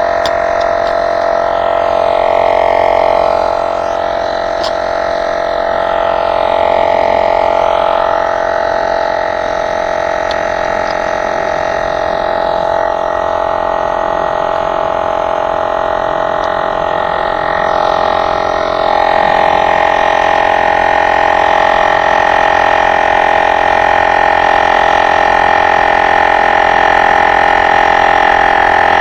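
Electric tire inflator's pump running steadily as it inflates an ebike tire, a continuous motor drone. About two-thirds of the way through it steps a little louder and higher in pitch.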